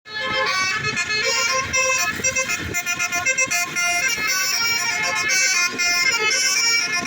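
A bus's Basuri telolet horn, a multi-tone electric horn, playing a tune of quickly changing notes.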